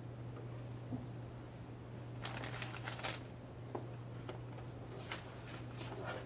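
Room tone in a computer lab: a steady low hum, with a few faint clicks and rustles about two seconds in and again near the end.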